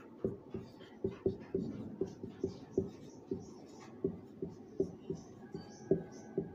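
Marker writing on a whiteboard: an uneven run of short strokes and taps as words are written out.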